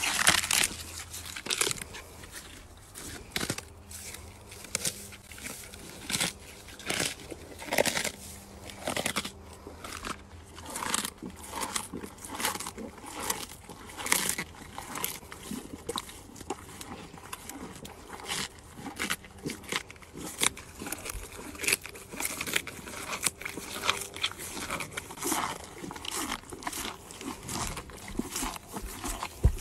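A cow chewing celery stalks, with a steady run of crisp crunches at about two a second.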